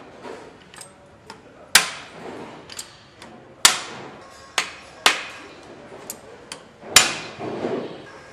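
Sharp metallic knocks and clicks from hand assembly work on an engine, as tools and parts strike metal. There are five loud knocks at irregular intervals, with lighter ticks between them.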